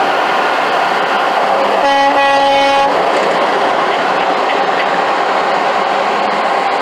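Steady road and traffic noise from driving on a highway beside a semi truck, with one horn blast about a second long, starting roughly two seconds in.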